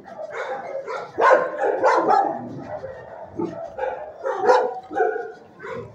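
A dog barking several times in short bursts, the loudest about a second in and again a little past the middle.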